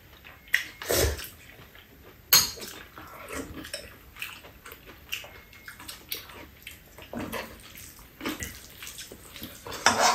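Mukbang eating sounds: metal spoons and chopsticks clinking and scraping against bowls and a frying pan in scattered taps, with wet mouth noises of eating.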